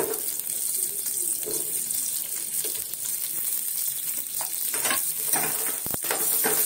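Chopped onion sizzling in hot oil in a frying pan, a steady hiss. From about five seconds in, a spoon stirs through the pieces with short scraping strokes.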